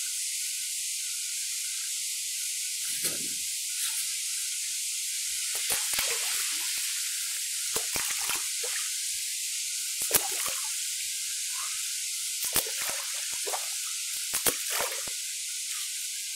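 Water splashing and dripping as a canoe is paddled down a river, with scattered light knocks and clicks, more of them from about halfway through, over a steady hiss.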